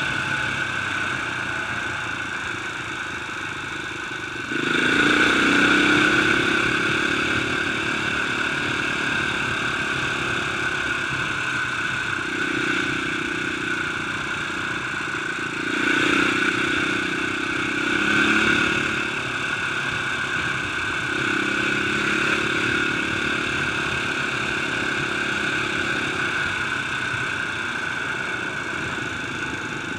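Motorcycle engine running while the bike is ridden, filmed from on board. The engine note surges as the throttle opens, most strongly about four and a half seconds in and again twice about midway.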